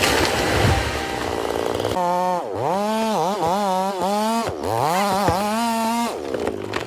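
Chainsaw running hard: a rough buzzing at first, then about two seconds in a clear high engine note whose pitch dips several times and recovers as the chain is loaded in the wood. Scattered knocks near the end.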